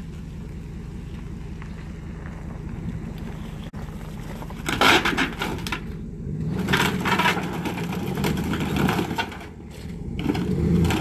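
Pickup truck engine running, then about five seconds in a sudden loud crash of breaking timber as the rotten wooden garage is dragged down by the truck, followed by cracking and scraping of boards and the engine pulling, with more crashing near the end as the roof comes down.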